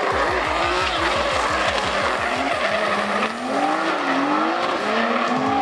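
Two drift cars sliding in tandem, their engines rising and falling in pitch with the throttle over continuous tyre squeal.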